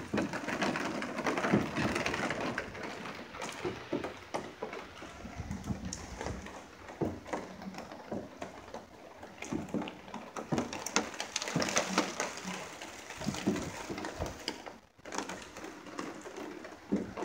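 Rain during a thunderstorm: a steady rush of noise with many irregular taps of drops. The sound briefly cuts out about three-quarters of the way through.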